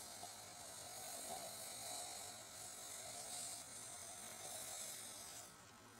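Leftover rocket fuel in a tin can smouldering after its flame has died, giving a faint hiss that fades and drops away about five and a half seconds in.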